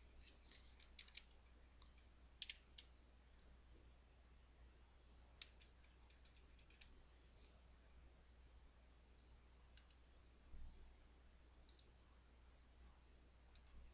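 Faint computer keyboard and mouse clicks, a few at a time with pauses between, over a low steady hum.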